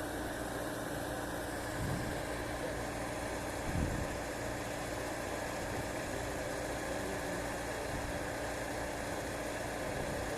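Earthmover's engine running steadily at idle, with two dull low thumps about two and four seconds in.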